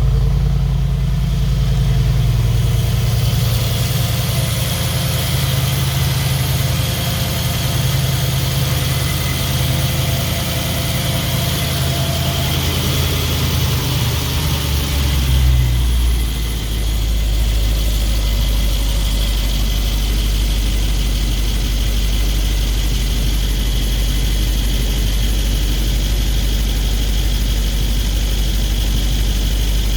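Mercedes-AMG G63's twin-turbo V8 idling just after its first start following an engine repair. About halfway through, the idle swells briefly and then settles lower and steady, typical of a cold-start fast idle dropping back.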